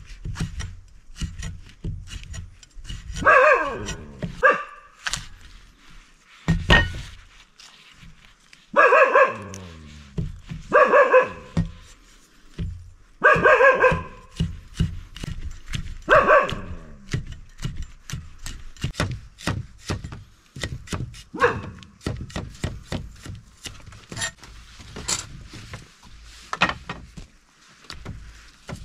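Large knife chopping herbs on a wooden block in rapid, steady knocks, while a dog barks loudly about half a dozen times at intervals of a few seconds.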